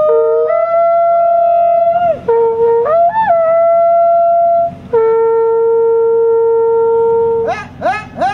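A hunting horn made from a cow horn, blown to call the deer dogs in: long wavering notes that jump between a lower and a higher pitch, the low note held steadily for a couple of seconds past the middle, then a quick run of short rising-and-falling notes near the end.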